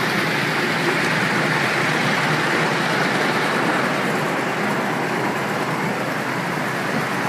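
Train running along the track while being ridden, a steady even rolling noise with no distinct clicks or rhythm.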